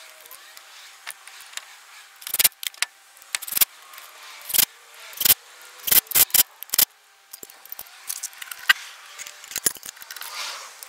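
Hand tools clinking and tapping on metal in a dozen or so irregular sharp clicks, as a battery terminal clamp is refitted and tightened onto the battery post.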